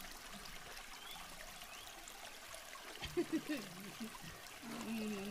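Steady trickle of flowing river water. About three seconds in, a man starts laughing, briefly at first and then in a longer wavering laugh near the end.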